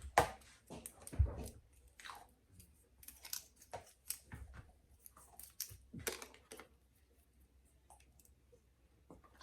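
Irregular crinkling and clicking of packaging being handled as an iPad charger is unpacked, busier at first and thinning out near the end.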